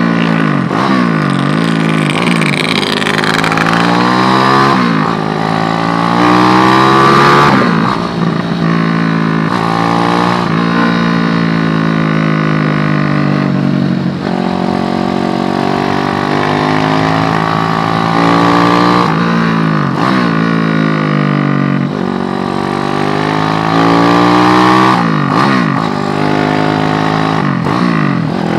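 SND ZS190 single-cylinder motorcycle engine pulling through the gears: its pitch climbs with each acceleration and drops sharply at every shift, about eight times, with stretches of easing off where the pitch falls slowly, over rushing wind noise.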